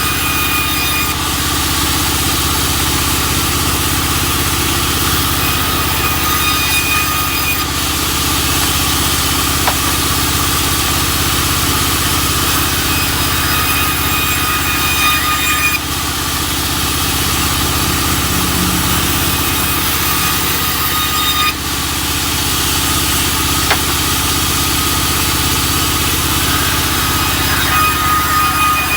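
Sawmill engine running steadily, with a thin high whine that comes and goes several times.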